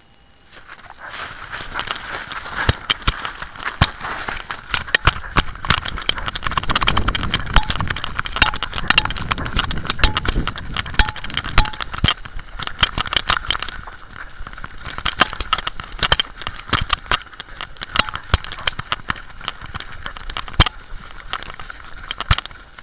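Handling noise from a camera strapped to a Jack Russell terrier as the dog moves through grass: dense rubbing and rustling with many sharp knocks from the camera jostling. It starts about a second in and is loudest in the middle.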